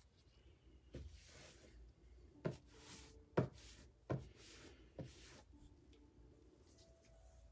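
Painting tools being handled on the work table: about five light taps roughly a second apart, several followed by a brief rubbing hiss.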